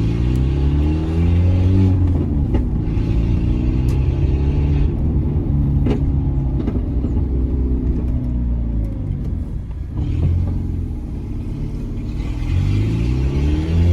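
Peugeot 206 1.4 8-valve four-cylinder running through a straight-through exhaust with no catalytic converter, accelerating and easing off as the car is driven. The engine note climbs and falls several times, with a dip partway through and a fresh climb near the end.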